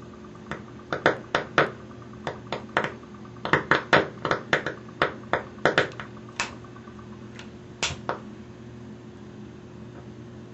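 Hydrogen gas bubbles from a homemade water-electrolysis cell igniting as they surface at a lighter flame, giving an irregular run of small sharp pops. The pops come thickest about four to six seconds in, then thin out and stop about eight seconds in. A steady low hum runs underneath.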